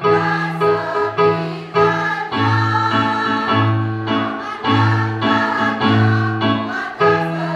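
Women's choir singing a march with electronic keyboard accompaniment, the voices holding long sustained chords over a steady bass line.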